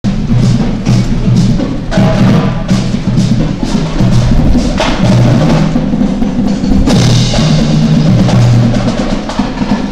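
School marching band playing a march, with drums keeping a steady beat of about two strokes a second under sustained low band notes.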